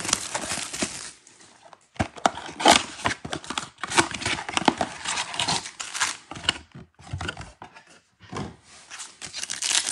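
A cardboard trading-card blaster box being torn open and its foil-wrapped card packs handled. The sound is a run of tearing, crinkling and rustling, with short pauses a second or two in and again near the end.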